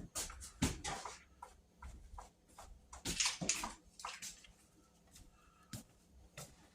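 Unpacking noises: irregular rustling and scraping of packing material with a scatter of light knocks and clicks from parts being handled, busiest in the first second and again around three to four seconds in.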